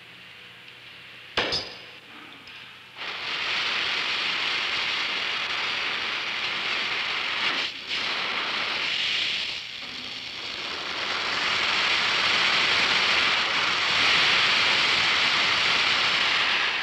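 Oxy-acetylene torch being lit and adjusted: a sharp pop about a second and a half in, then from about three seconds a steady hiss of gas and flame. The hiss dips briefly twice and grows louder as the torch valves are turned up.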